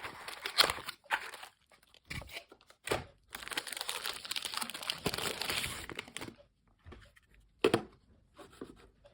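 Product packaging being unwrapped by hand: scattered rustles and clicks, then a few seconds of steady crinkling from about three seconds in, and a single knock near the end.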